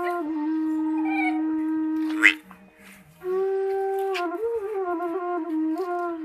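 Background music: a single sustained melody with gliding, held notes, which breaks off for under a second a little past the middle.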